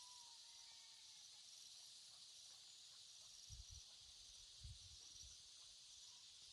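Near silence with a faint, steady chirring of insects, and a few soft low thumps about halfway through.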